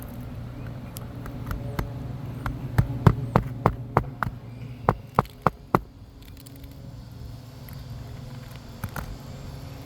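A quick, uneven run of about ten sharp knocks or taps over roughly three seconds, about three a second, over a steady low hum.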